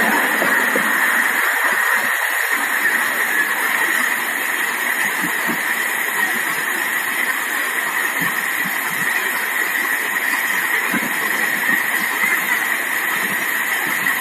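Solar-powered paddlewheel aerator running, its paddles churning the water in a steady splashing rush with small irregular splashes.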